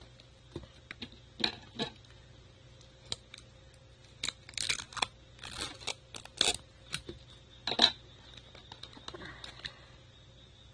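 Handling of a cardboard trading-card box and its paper checklist sheet: an irregular string of taps, rustles and scraping slides of card and paper, with the loudest scrape a little after two-thirds of the way through.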